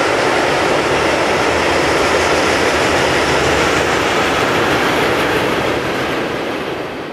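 Wagons of a mixed freight train rolling past on the track: a steady, loud rush of steel wheels on rails, fading out near the end.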